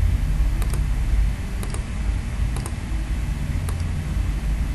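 Computer mouse clicking: short sharp clicks about once a second, several in quick pairs, over a steady low hum.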